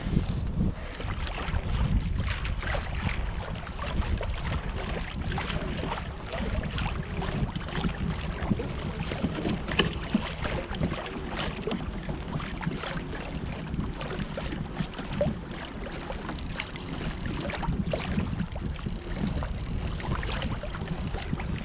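Water lapping and splashing against a kayak's hull, with wind rumbling on the microphone and frequent small ticks and splashes throughout.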